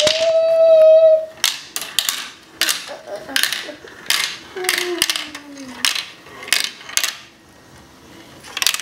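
A glass marble rolling down a plastic marble run, clicking and clacking sharply as it drops through the tubes and ramps, a click or two a second, dying away near the end. At the start a voice holds one long high note, the loudest sound here.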